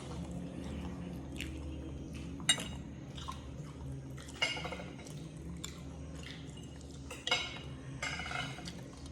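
Eating sounds: cutlery and dishes clinking, with chewing and short crunchy bursts, over a steady low hum.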